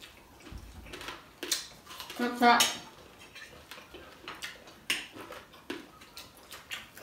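Metal fork clinking and scraping on ceramic plates during a meal, in scattered separate taps. A brief voice sound comes about two and a half seconds in.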